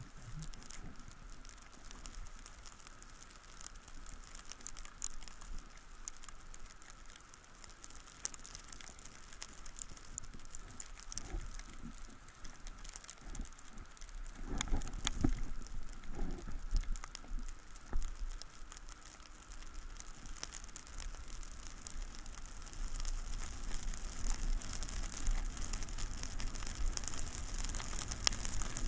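Crackling, rain-like hiss from a body-worn action camera as its wearer slides over snow, with a few rustling knocks about halfway through while stopped. The sliding noise grows louder near the end as the rider picks up speed downhill.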